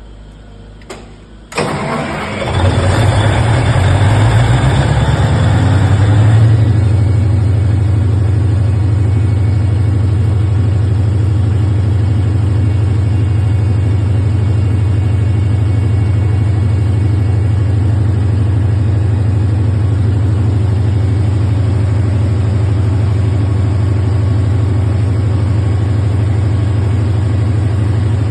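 Large Dorman diesel engine of a 1000 kVA generator set starting: a click, then the engine catches about a second and a half in. It picks up speed for about five seconds, then settles into steady running with a deep, even hum.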